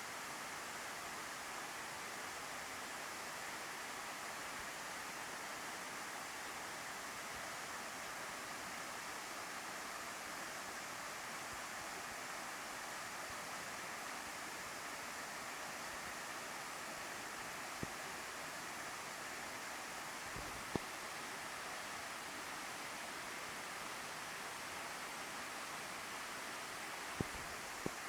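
Waterfall rushing steadily, with a few short clicks about two-thirds of the way in and near the end.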